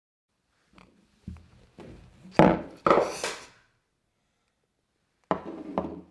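A series of knocks and thumps on a wooden tabletop, some with a short scrape, as a plush hand puppet is worked against the table. The loudest come in a cluster about two and a half to three and a half seconds in, then two more sharp knocks near the end.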